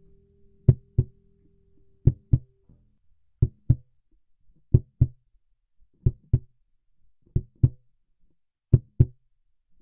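Slow heartbeat: a pair of low thumps (lub-dub) about every second and a half, seven pairs in all. A held music note with lower tones under it fades out in the first few seconds.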